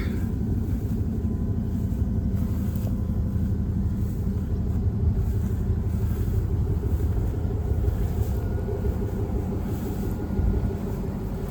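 1999 Suburban's engine running with a steady low rumble.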